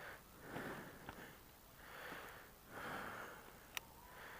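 Faint breathing close to the microphone: a series of soft breaths about a second apart, with one short click about three-quarters of the way through.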